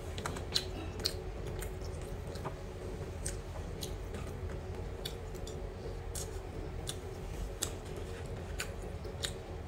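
Close-up eating sounds: a metal spoon clicking and scraping against a plastic takeout box of rice, and chewing, heard as sharp irregular clicks over a steady low hum.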